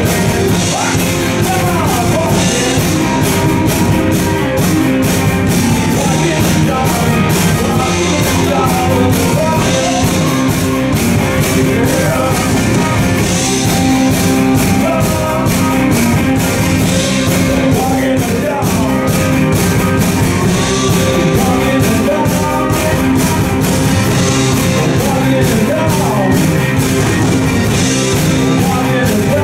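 Live rock band playing: electric guitars, electric bass and a drum kit, with a man singing.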